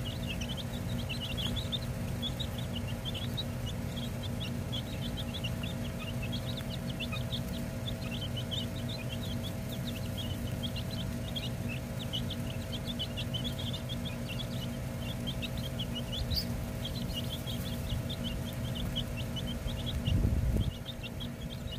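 Baby chicks peeping continuously, many short high calls overlapping, over a low steady hum. A brief low thump comes near the end.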